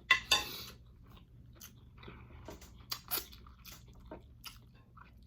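Close-miked biting and chewing of hot chicken wings: a loud crunching bite at the start, then scattered softer crunches as the chewing goes on.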